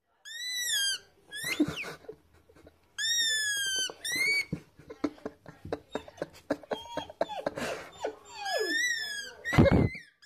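German Shepherd puppy whining: a series of high-pitched, drawn-out arching cries, three long ones and a few shorter ones. A run of sharp clicks comes between the cries, and there is a short, louder sound near the end.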